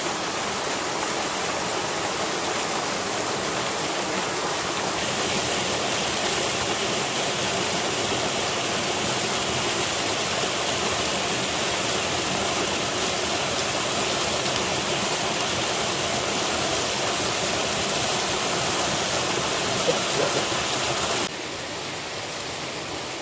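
Flour-battered squirrel pieces frying in hot oil in a small pan, a steady sizzling hiss over the rush of a waterfall. The sizzle grows brighter about five seconds in. It cuts off suddenly near the end to a quieter background.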